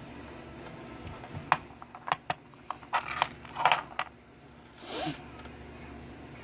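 Small metal parts of a padlock being handled and clinking against each other and the desk: a run of light, sharp metallic clicks over about two and a half seconds.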